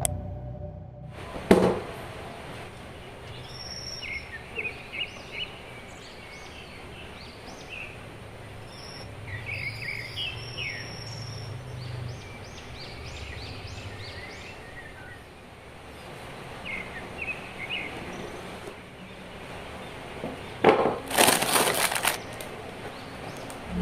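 Birds chirping over a steady background hiss, short high chirps scattered throughout. A sharp click comes about a second and a half in, and a brief loud crackle near the end.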